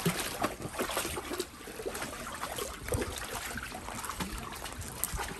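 Shallow water sloshing and splashing irregularly in a paddling pool as dogs wade and shift about in it.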